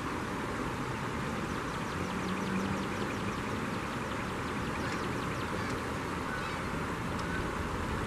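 Steady rush of flowing river water, with a duck quacking briefly about two seconds in and a string of faint, short high calls from the wheeling gulls and birds over the following few seconds.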